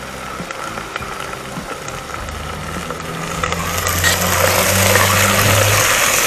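Sliced onions sizzling in hot oil in a pressure cooker over a gas burner, stirred with a wooden spoon. The sizzle grows loud about three seconds in as the microphone comes close to the pot, with a low steady engine-like hum underneath.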